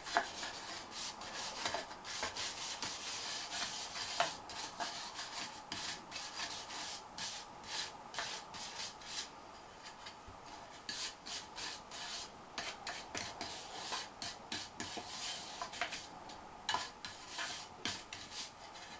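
A stiff brush sweeping casting sand off the surface of a freshly cast aluminum table top, in repeated scratchy strokes, with a short lull about halfway through.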